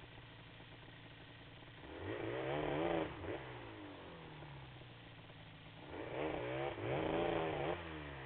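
Yamaha Banshee's two-stroke twin engine revved hard twice, each burst about a second or two long with the pitch wavering up and down, dropping back to a low idle between and after. The quad stays in place on the snowy climb, so the revs are wheelspin on tyres without traction.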